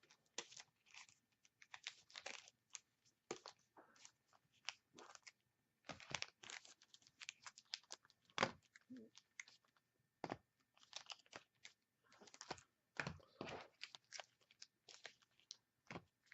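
Foil-wrapped hockey card packs being handled and sorted, their wrappers crinkling and crackling faintly in irregular short bursts.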